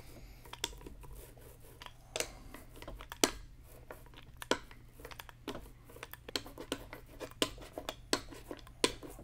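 Grooved bubble roller rolled back and forth over wet peel ply and fiberglass tape on an epoxy-filled seam, giving irregular clicks and scratchy ticks, the sharpest about three seconds in.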